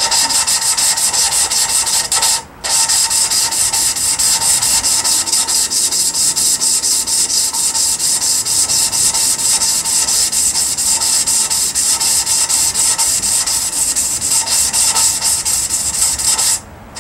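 Valve being lapped into its seat in a Jeep 4.0 cylinder head: lapping compound grinding between valve face and seat as the valve is spun quickly back and forth by a hose on its stem, a fast, even rasping. It breaks off briefly about two and a half seconds in and stops near the end.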